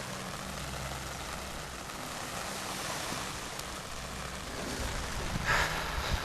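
Steady rain falling, with a low steady hum underneath and a short louder rustle about five and a half seconds in.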